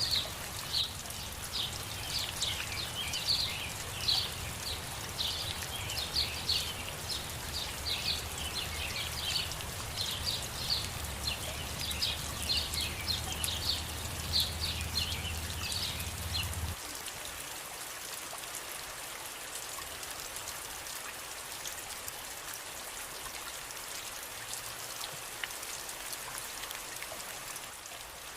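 Steady rain falling. For the first sixteen seconds or so it comes with rapid, repeated high chirps and a low hum, and both cut off together; after that only the rain hiss is left.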